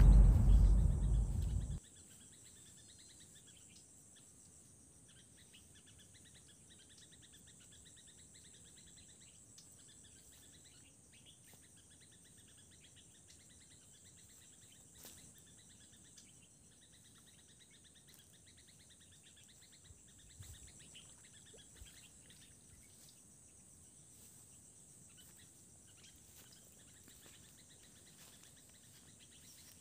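Insects droning steadily at a high pitch, with faint bird chirps now and then. A loud low rumble on the microphone fills the first two seconds.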